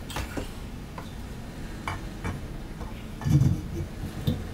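Ford Crossflow cylinder head being lowered over the studs onto the block: a few light metallic clicks and clinks, then a dull low clunk about three seconds in as the head settles onto the gasket.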